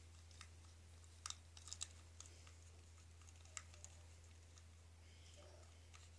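Near silence: a steady low hum, with a few faint sharp clicks bunched between one and two seconds in and another just after three and a half seconds.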